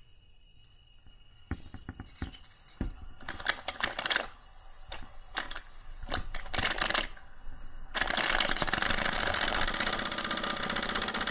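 Live-steam model engine with a single vertical cylinder, run on steam from its own boiler: clicks, knocks and a short hiss as the steam valve is opened and the flywheel is turned by hand. About eight seconds in the engine catches and runs steadily with a fast, even clatter, now that its steam and exhaust connections are no longer swapped.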